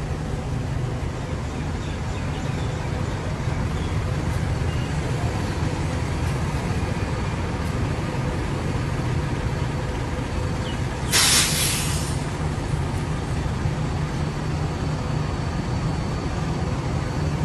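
Engines of Yutong coaches passing at low speed, a steady low rumble. About eleven seconds in comes one short, loud hiss of air, an air-brake release.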